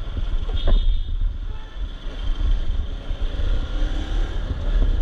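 Bajaj Pulsar RS200 motorcycle's engine running at low speed, with a heavy, fluttering wind rumble on the microphone.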